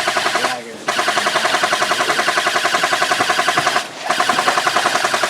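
Airsoft rifle firing full-auto in long, rapid bursts, a fast even rattle of shots. It stops briefly twice, about half a second in and again near four seconds in.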